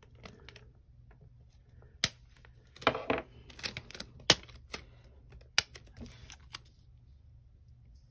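Hands handling a roll of washi tape: scattered sharp clicks and taps, with a short rustle about three seconds in.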